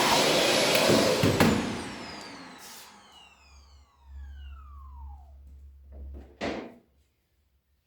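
An electric motor-driven fan runs loudly, is switched off with a click about a second and a half in, and its whine glides down in pitch as it spins down over several seconds. A short knock follows near the end.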